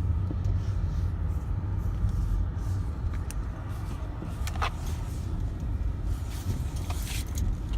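Steady road and engine rumble inside the cabin of a moving Ford Fusion, with one short sharp sound about halfway through.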